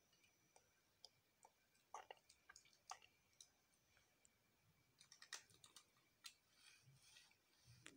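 Faint, scattered clicks and taps of plastic Lego bricks as a small brick-built car is handled and adjusted, with a short cluster of clicks about five seconds in.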